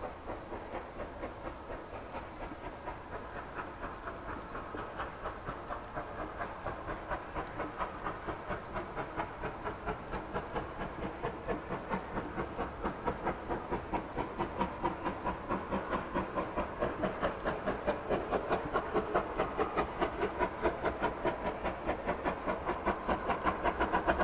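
Steam locomotive working hard with a steady rhythm of chuffing exhaust beats, growing steadily louder as it approaches.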